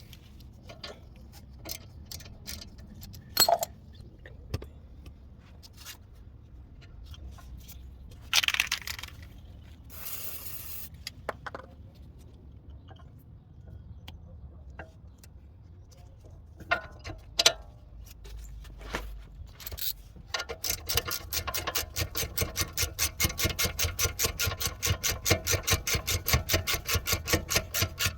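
Metal tools and brake caliper parts clinking and scraping, with a brief hiss about ten seconds in. From about twenty seconds a ratchet wrench clicks rapidly and evenly as a caliper bolt is wound in.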